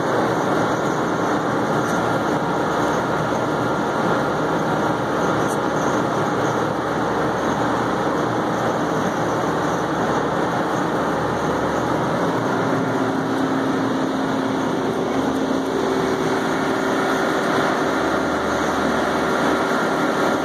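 Steady drone of large 100-ton Trane air-cooled condensing units running, with a few faint steady hum tones under the fan noise.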